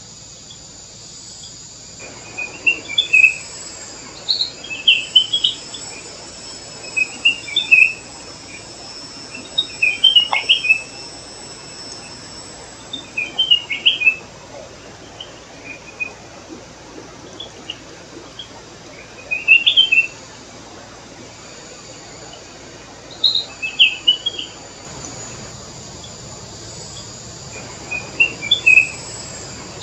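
Flame-throated bulbul calling: short clusters of quick chirpy, warbled notes, one every two or three seconds, over a steady high background hiss.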